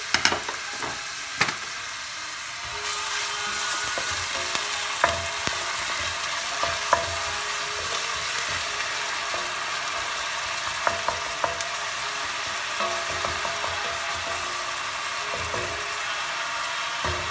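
Chopped onions sizzling in hot oil in a stainless steel pot, stirred with a wooden spoon that scrapes and knocks against the pot. A couple of sharp knocks at the start; the sizzle grows louder about three seconds in.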